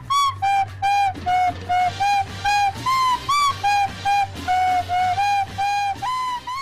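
Background music: a flute-like melody of short, evenly spaced notes, about three a second, over a steady low bass.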